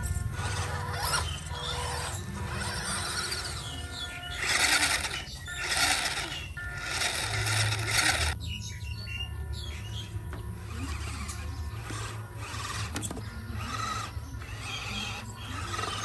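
Background music over the whine of a scale RC crawler truck's electric motor and gears, loudest in bursts from about four seconds in while the truck claws up a sand mound, cutting off suddenly about eight seconds in.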